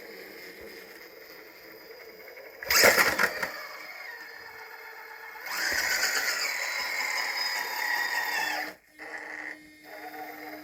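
Holmes Hobbies Revolver 1000kV brushless motor on 6S in an Axial Wraith RC crawler, driven by its ESC: a short loud burst of motor whine about three seconds in, then a longer run of about three seconds with a steady whine that cuts off suddenly.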